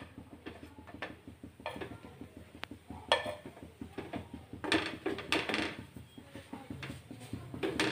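Light scrapes and taps of a steel spatula on a nonstick tawa as bhakhri flatbreads are flipped, scattered and irregular, busiest in the middle.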